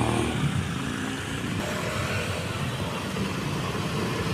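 Steady road traffic: motorcycle and car engines running with a low, even rumble.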